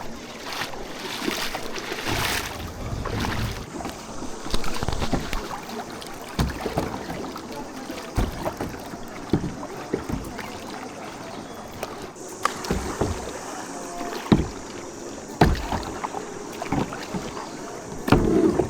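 A canoe being paddled: the paddle splashes in the water, with irregular sharp knocks of paddle against hull every second or two.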